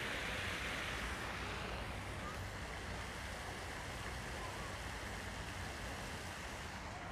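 Fountain jets splashing steadily into a shallow pool, slowly growing fainter.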